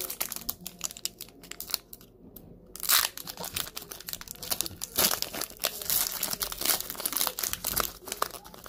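Foil wrapper of a Pokémon trading card booster pack crinkling and tearing as it is opened by hand. Scattered crackles at first, then the crackling turns loud about three seconds in and stays busy as the wrapper is torn and pulled apart.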